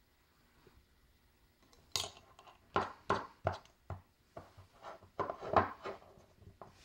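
A run of about a dozen sharp clicks and taps of small hard objects knocking together, starting about two seconds in.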